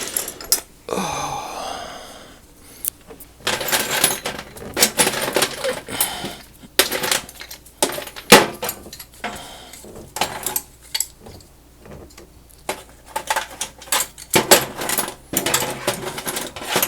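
Loose steel hand tools (wrenches, screwdrivers, nut drivers) clinking and clattering against each other as they are rummaged through and set down. One clank just after the start rings on briefly, and a sharp one about eight seconds in is the loudest.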